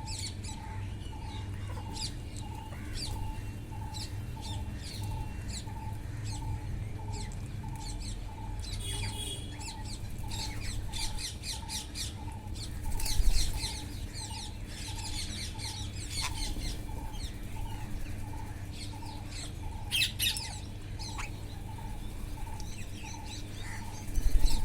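Wild parrots calling with many short chirps and squawks, in louder clusters about 9, 13 and 20 seconds in.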